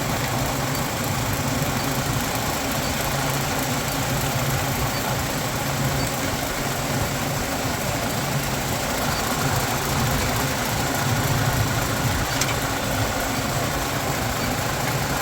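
Refrigeration rack machinery running: a steady mechanical hum from the compressors and fans, even throughout.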